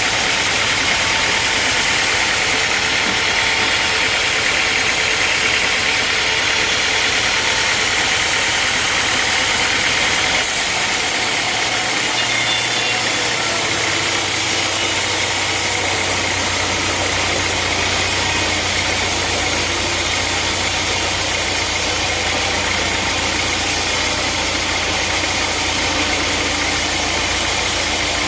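Sawmill machinery running steadily with a loud engine-like drone. Its sound shifts a little after ten seconds in, when a low steady hum comes up.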